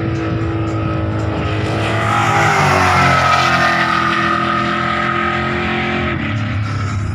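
Race cars accelerating hard down a drag strip, the engine note climbing and swelling as they pass close, loudest about three seconds in, then easing as they run on down the track.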